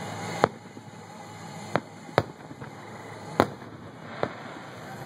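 Aerial firework shells bursting: five sharp bangs at uneven intervals, the loudest about half a second in and about three and a half seconds in.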